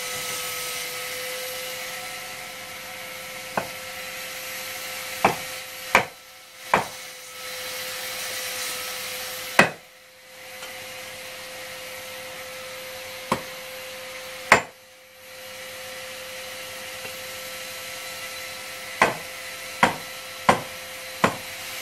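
About a dozen scattered sharp knocks and clacks as a wooden board and a perforated steel muffler core are handled and positioned in a bench vise, with a steady hum underneath.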